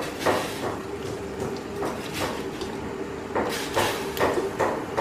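Irregular knocking, about eight sharp strikes spaced half a second to a second apart, over a faint steady hum.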